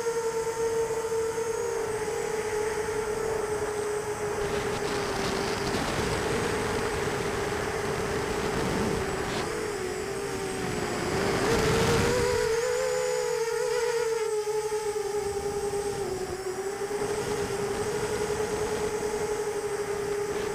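FPV quadcopter's motors and propellers whining steadily, heard from the camera on board, the pitch wavering a little with the throttle. A rush of air noise builds over the middle and is loudest about twelve seconds in, during a fast low pass.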